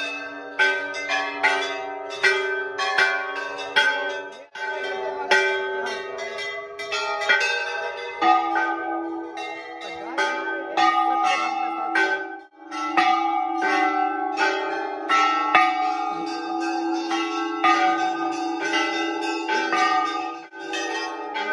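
Temple bells struck over and over, about two strikes a second, their tones ringing on and overlapping into a continuous clangour. The ringing drops out briefly twice.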